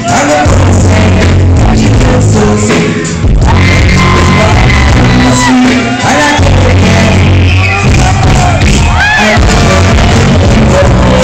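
Live reggae band playing with a singer, heavy bass to the fore, recorded so loud on a phone's microphone that it is overloaded and distorted, with shouts from the crowd.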